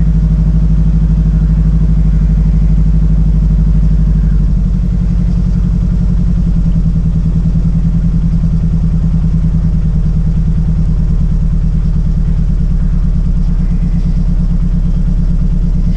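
Mazdaspeed 3's turbocharged 2.3-litre four-cylinder running steadily, changing to a lower, pulsing note about four and a half seconds in. The engine is running badly after a VVT timing repair, with a stuck-closed fault code and a fuel smell, and the owner expects it would die if left to idle.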